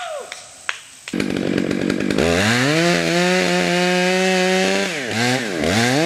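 Stihl chainsaw revving up to full throttle about two seconds in and running steadily at high speed. Near the end the engine drops and picks back up twice.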